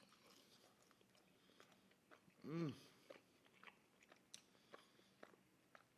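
Faint close-miked chewing of pizza: small wet mouth clicks and smacks, with a short hummed "mm" about two and a half seconds in.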